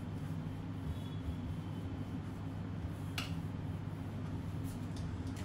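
Whiteboard eraser rubbing marker off a whiteboard over a steady low room hum, with one sharp tap a little past three seconds in.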